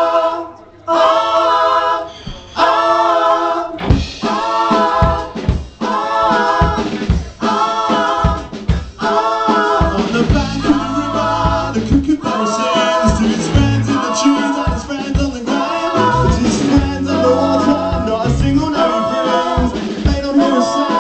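A live pop band with several voices singing together in harmony. The song opens on the voices alone, and a drum beat joins about four seconds in. Bass and the rest of the band come in at about ten seconds.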